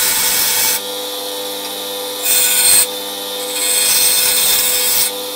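Bench grinder running with a steady motor hum, as a metal BMW throttle actuator shaft is pressed against its spinning stone wheel in three bursts of grinding hiss, the last the longest. The grinding takes off the lip at the top of the shaft.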